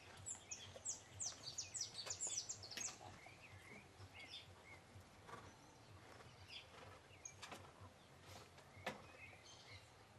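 Songbirds calling faintly: a quick run of high, falling chirps over the first few seconds, then scattered single chirps over a low outdoor background hiss. One short sharp tick near the end.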